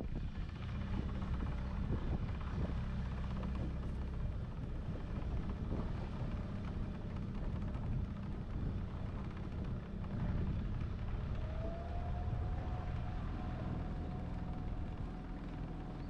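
Small motorboat's engine running steadily under way, with the rush of water and air around the boat. A faint thin whine rises briefly about two-thirds of the way through, then holds.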